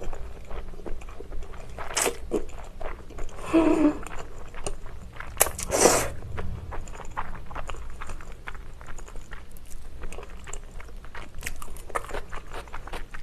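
Close-miked mouth sounds of a person chewing pesto spaghetti and glass noodles: many small wet clicks and smacks, with two short louder slurps about two seconds in and near six seconds.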